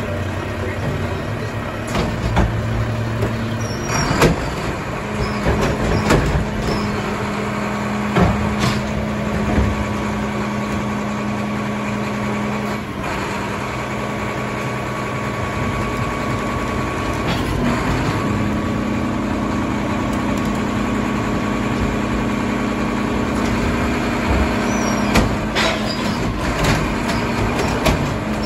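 Mack LEU garbage truck's diesel engine running steadily while its packer works, the engine note shifting in pitch a few times. Recycling is tipped by hand into the side-loading hopper, with repeated clatters and thumps.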